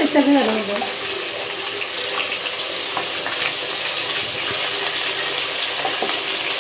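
Pieces of coated fish frying in hot oil in a non-stick wok, a steady sizzle, with a wooden spatula stirring and scraping the pan that makes small clicks.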